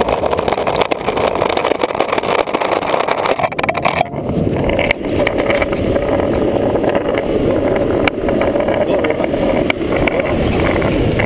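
Longboard wheels rolling fast over asphalt, a loud steady rumble picked up by a GoPro mounted on the board, with a few sharp clicks.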